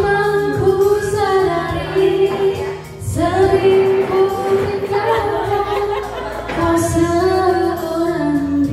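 A woman singing karaoke into a microphone over a backing track, holding long notes, with a short break between phrases about three seconds in.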